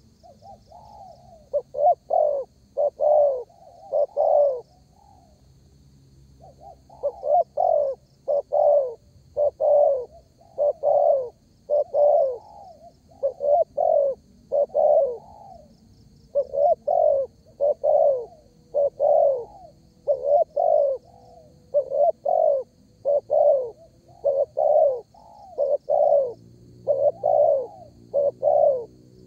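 Spotted dove (derkuku) cooing over and over, in runs of several clear coos separated by short pauses.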